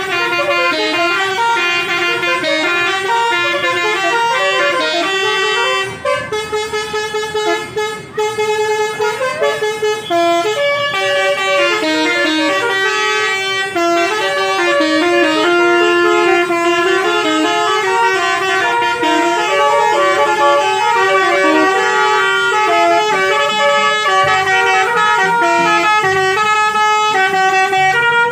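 Bus 'basuri' musical horn playing a melody: a run of stepping notes in several voices at once. It breaks into short choppy toots about six seconds in, then plays on smoothly from about ten seconds.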